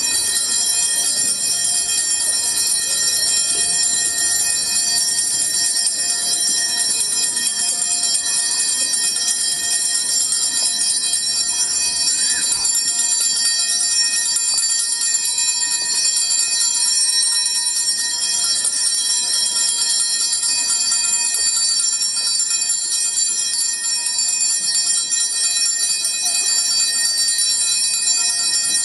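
Altar bells (a cluster of small hand bells) ringing continuously and steadily. This is the ringing that accompanies the priest's blessing of the people with the monstrance at Benediction.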